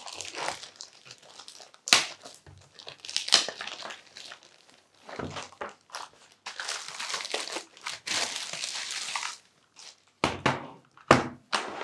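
Plastic packaging crinkling and rustling as a keyboard is unwrapped, with a few sharp knocks and clicks in between; the longest stretch of rustling comes past the middle.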